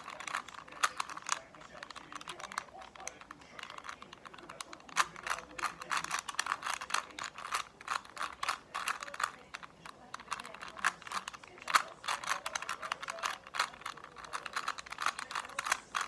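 A plastic 3x3 Rubik's Cube being twisted fast by hand during a timed solve. The layers click and clack in quick, uneven runs of turns, with short pauses in between.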